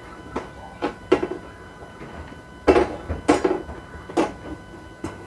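Kitchen pans and utensils knocked and clinked on a stovetop: about seven separate sharp knocks spread unevenly, the loudest close together near the middle, over a faint steady hum.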